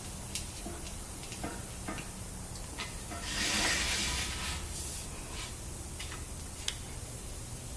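Scattered light metallic clicks and ticks from hand-tapping holes in a steel tube with a tabletop tapper, over a steady low hum. About halfway through there is a hiss lasting about a second and a half.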